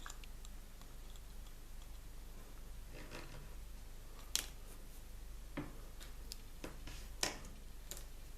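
Handling noise: a few sharp clicks and light rustles of small plastic toy parts and packaging being handled, the two sharpest clicks about four and seven seconds in, over a steady low hum.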